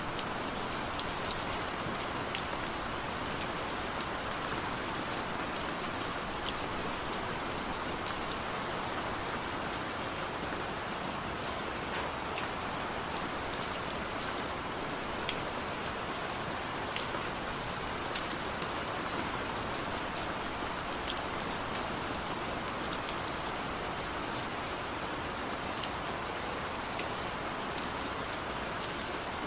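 Steady rain falling on a surface, a constant hiss with scattered sharper drop ticks.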